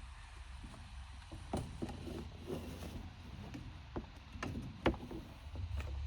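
Fence panels being handled and set down: a string of knocks and clatters, the sharpest about four and five seconds in, over a low steady rumble.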